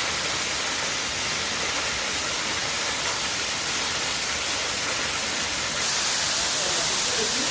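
Waterfall pouring: a steady rush of falling water that grows louder and hissier about six seconds in.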